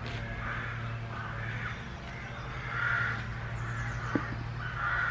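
Crows cawing over and over, a string of short calls with the loudest about three seconds in, over a steady low hum. A sharp knock comes near the end.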